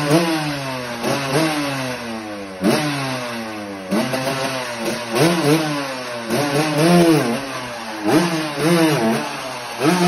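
1987 Cagiva WMX 125's two-stroke single-cylinder engine being blipped repeatedly, each rev rising sharply and sliding back down, roughly once every second or so.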